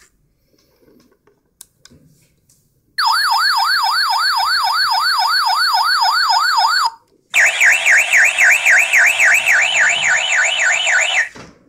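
A small red toy siren light plays an electronic warbling siren, about four sweeps a second, for about four seconds. After a short pause, a talking-hamster mimicry plush plays the siren back at a higher pitch for another four seconds.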